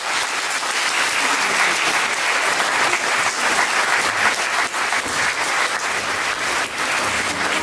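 Audience applauding: a steady mass of clapping from a roomful of listeners at the close of a speech.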